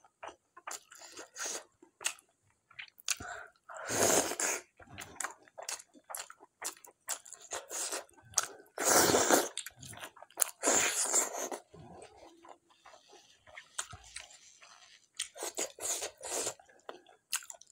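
Close-miked chewing and mouth sounds of eating mutton curry with dhido by hand: many short wet clicks and smacks, with a few louder, longer stretches of sound.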